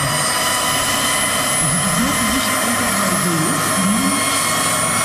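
Large-scale radio-controlled model Eurocopter EC135 helicopter running on the ground with its main rotor turning: a steady, even whine of several high held tones over a constant rush.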